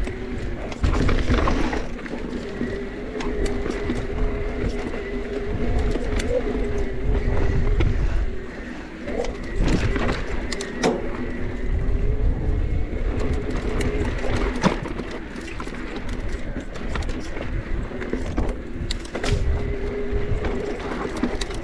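Specialized Turbo Levo electric mountain bike on a rough dirt trail. Its mid-drive motor whines steadily, the pitch wavering with the pedalling, over a low rumble of wind and tyres. Scattered sharp knocks and rattles come from the bike over rocks, the loudest about halfway through and again near the end.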